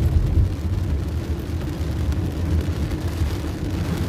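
Inside a car driving through heavy rain: a steady low rumble of engine and road noise with a fainter hiss from the rain and wet road.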